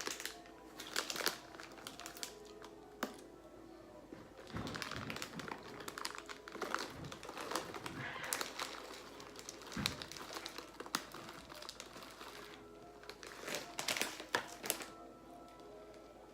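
Plastic bag of chocolate chips crinkling, with irregular clicks and rattles as the chips go into the mixing bowl, over quiet background music.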